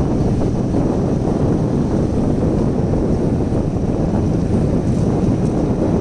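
Wind buffeting the microphone of a phone carried on a moving two-wheeler: a steady low rumble of rushing air with no distinct events.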